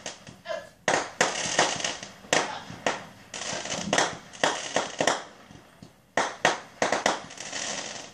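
Aerial fireworks bursting: an irregular run of sharp bangs, about two a second, each with a short fading tail, with crackling between them.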